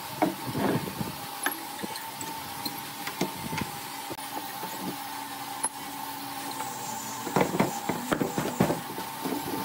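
Woodworking machine running with a steady whine, under irregular knocks and clatter of wood being worked or handled, which come in clusters near the start and again near the end. The whine stops right at the end.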